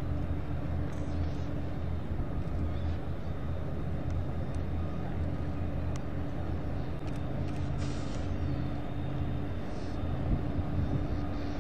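Steady low droning hum of a large warship's engines and machinery as the frigate passes close by, with a few brief hisses near the end.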